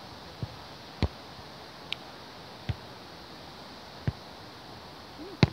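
Hands striking a volleyball during a beach volleyball rally: a string of sharp slaps roughly a second apart, the loudest near the end, over a faint steady hiss.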